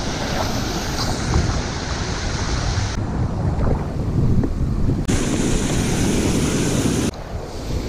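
Rushing water of a small waterfall and whitewater rapids pouring through a rock channel, with wind buffeting the microphone. The sound shifts abruptly about three, five and seven seconds in.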